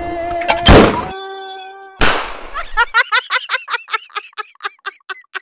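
Edited comedy sound effects: a loud bang just under a second in, a short held tone, a second bang at about two seconds, then a laughing sound effect of quick repeated 'ha' pulses, about five a second, fading out.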